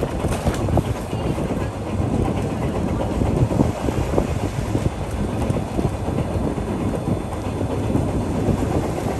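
Vintage electric tram of the Sóller tramway with its open wooden cars running along street track, heard from aboard: a steady low rumble with frequent clicks and clatter of the wheels over the rails.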